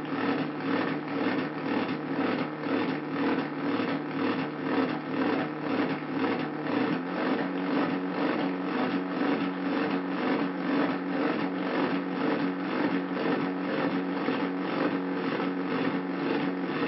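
Hand-made Arduino drone/noise synthesizer playing a dense, buzzing drone of several held pitches that pulses evenly, about three times a second. About seven seconds in its lowest tones drop out, leaving the middle and upper layers.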